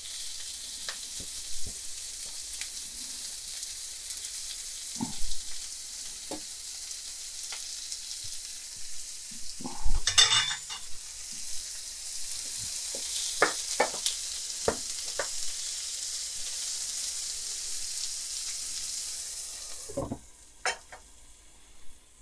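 Ground beef and onions sizzling in oil in a frying pan, with short knocks and scrapes of a utensil breaking up and stirring the meat, and one louder clatter about halfway through. The sizzling cuts off suddenly near the end.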